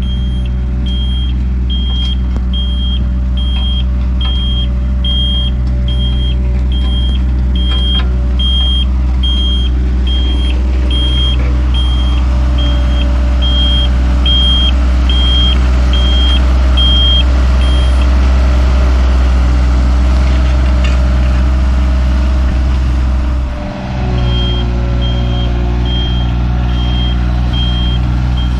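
A diesel engine of a small plant machine runs steadily under work, with a travel or reversing alarm beeping about once a second. The alarm stops about two-thirds of the way in and starts again near the end.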